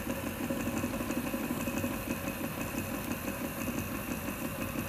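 Prusa i3 3D printer laying down infill: its stepper motors buzz in a quick, regular pulse as the print head zigzags back and forth across the bed.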